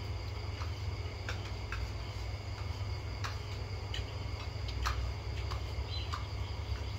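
Spoons clicking and scraping against china plates and bowls during a meal, a dozen or so light, irregular taps. Under them a steady low hum and the faint, steady chirring of crickets.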